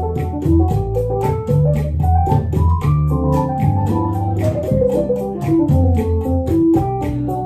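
Electronic keyboard taking a solo in a Latin jazz tune, with an organ-like tone, over upright bass. A steady high tick keeps time about four times a second.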